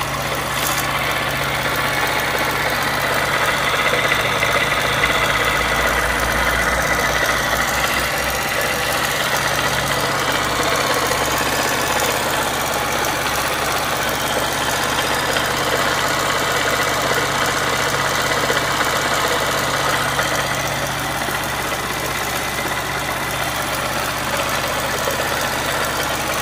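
Yamaha XTZ 125 motorcycle's single-cylinder four-stroke engine idling steadily, with a strange mechanical noise from the engine that the owner cannot account for despite oil changes every 1,000 km.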